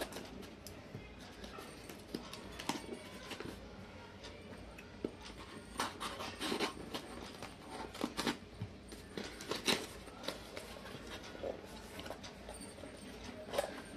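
Scissors snipping and sliding through packing tape and thin cardboard, a string of irregular small clicks and crackles. Near the end, cardboard flaps rustle as the box is pulled open.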